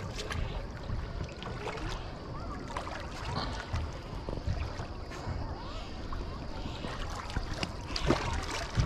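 Sea water splashing and lapping as snorkelers swim and kick at the surface, with small splashes and a low, uneven rumble underneath.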